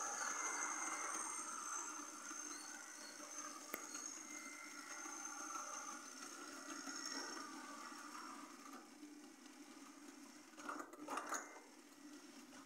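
Model train, a model GWR King class locomotive hauling its coaches, running fast along the layout's track: a steady whirr and high whine from the motor and wheels that fades as it moves away, with a few sharp clicks near the end.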